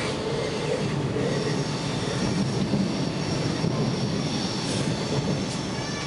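Interior of a Lastochka (Siemens Desiro ES2G) electric train running at speed: a steady rumble of wheels on the rails, with a faint high thin whine above it.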